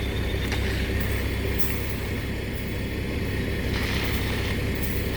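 Heavy engine running steadily at a construction pour, with a few short scrapes of hand tools working wet concrete.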